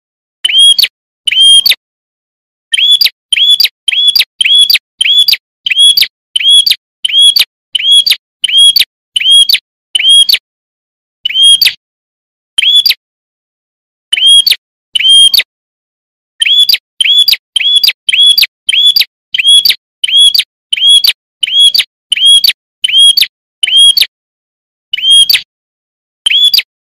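Prinia (prenjak) calling: short, sharp, identical high chirps at about two a second, in runs broken by brief pauses.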